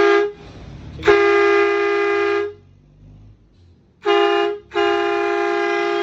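Battery-powered twin-trumpet air horn sounding in blasts of two close, steady tones: a short toot, a blast of about a second and a half, another short toot about four seconds in, then a long held blast starting just before the end.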